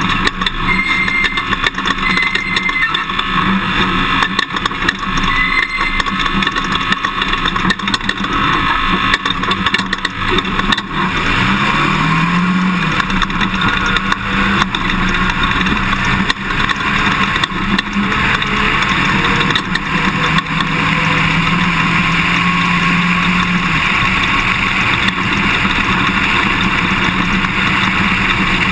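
Toyota Tundra pickup being driven off-road, with constant road noise and many small knocks and rattles. The engine note climbs about a third of the way in and holds higher for a few seconds later on.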